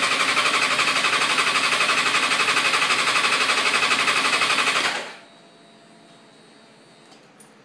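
Suzuki GSX-R 600 inline-four engine turning over on its electric starter in a rapid, even rhythm for about five seconds without catching, then stopping: a no-start, which the owner suspects is a lack of spark.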